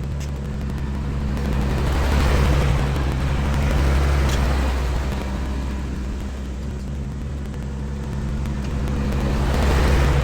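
Tractor engine running steadily while grading, its sound swelling and easing several times as it works.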